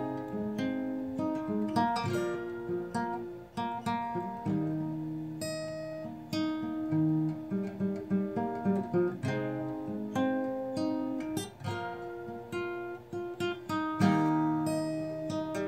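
Instrumental acoustic guitar music: a slow passage of plucked notes and strummed chords.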